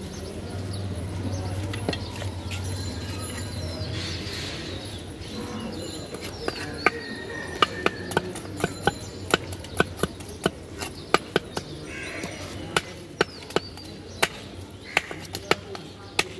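Knife scraping the scales off a large rohu fish on a wooden block: a run of sharp clicks and scrapes, roughly two a second, starting about six seconds in, over a low background hum.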